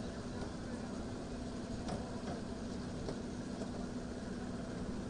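Steady, even engine drone with a constant hum, with a few faint clicks and knocks on top.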